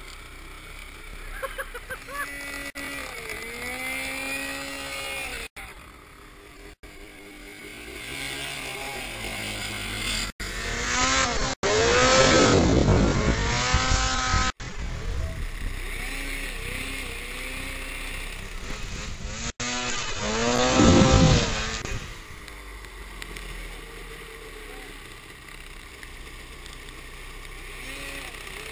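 Snowmobile engines revving hard through a series of abruptly cut clips, the pitch climbing and dropping with the throttle. The two loudest stretches come about a third and about two-thirds of the way in.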